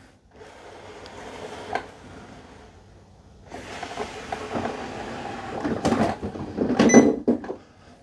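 Narwal Freo X Ultra robot vacuum-mop running as it drives back into its base station to have its mop pads washed. The motor and wheel noise grows louder about halfway through, and a few sharp clunks near the end come as it docks.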